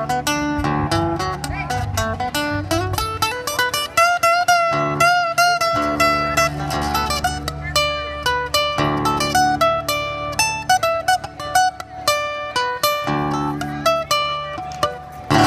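Acoustic-electric guitar played solo, a picked melody of quick single notes over ringing bass notes, with a held note shaken with vibrato about four seconds in.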